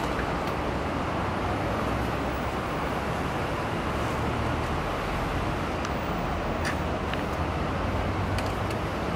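Steady urban traffic noise, an even roar of road traffic, with a few faint clicks a few seconds apart.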